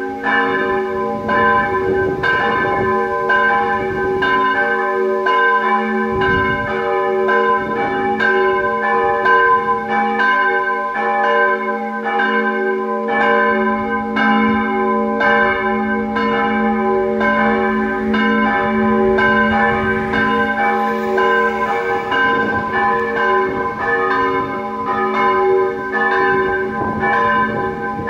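Swinging church bells, which online sources list as steel bells, ringing together in a continuous peal. Their strokes overlap in an uneven rhythm over a steady low hum.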